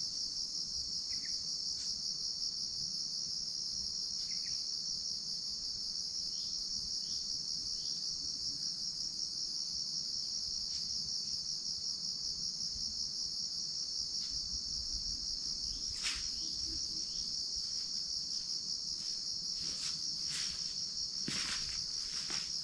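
Steady high-pitched drone of insects, crickets or cicadas, with scattered faint clicks that become sharper and more frequent in the last third.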